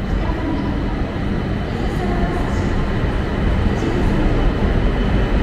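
E5 series Shinkansen pulling out along the platform and gathering speed. It makes a steady rushing rumble of running and wheel noise that grows a little louder as it goes.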